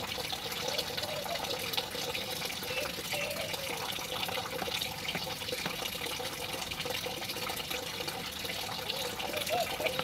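Steady rush of running water, like a small waterfall, with faint, low, wavering calls that come and go underneath.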